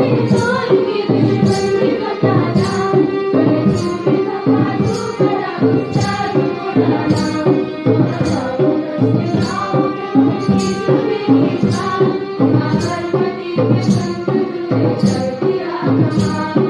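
A group of girls singing a song together over electronic keyboard, harmonium and hand drums, with the drums keeping a regular beat.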